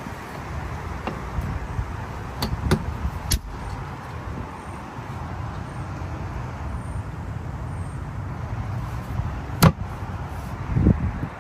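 Several knocks and clunks as the rear flip seat, storage bin and diamond-plate cargo-deck panels of a KANDI Kruiser 6P golf cart are handled, a few early on and the loudest near the end, over a steady rumble of wind on the microphone.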